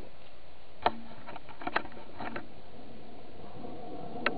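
A couple of sharp knocks, one about a second in and another a little before two seconds, with a few fainter taps, over a steady background hiss.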